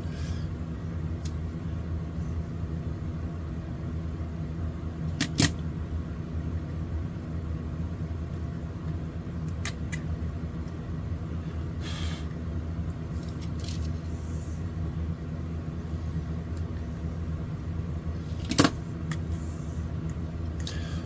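Steady low electrical or machine hum with several faint even tones, and a few light clicks and taps from handling the soldering work.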